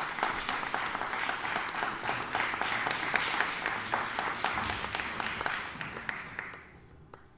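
Audience applauding, a dense spread of clapping that dies away near the end.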